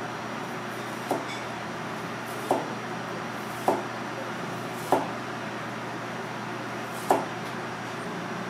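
Five knocks, unevenly spaced, as a Misono chef's knife cuts thin slices from a red radish and strikes a plastic cutting board, over a steady background hum.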